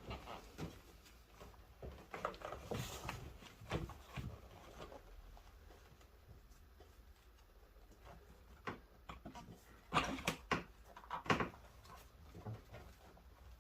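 Scattered light clicks and clunks of parts being handled, in two clusters with a quieter stretch between.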